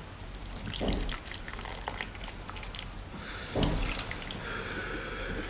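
Hot water in a pot bubbling and dripping while food is blanched a second time to finish cooking, with many small clicks and splashes.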